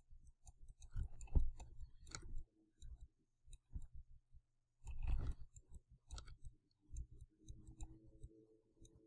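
Computer mouse clicks and handling noises, short irregular clicks scattered over a faint low hum.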